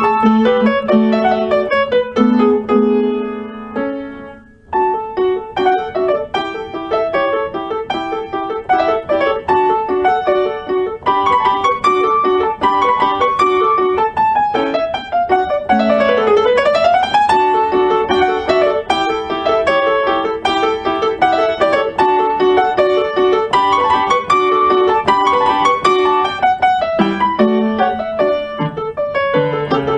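Background piano music of quick running notes, with a brief pause about four seconds in and a fast run down and back up near the middle.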